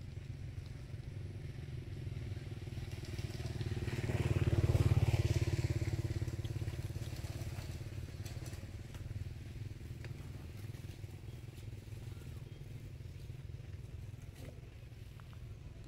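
A passing engine: a low rumble that grows louder to a peak about five seconds in and then fades, over a steady low hum.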